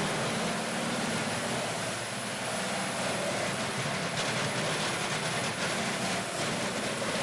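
Heavy diesel machinery running steadily: a wood grinder and a grapple log loader at work, giving a constant machine drone.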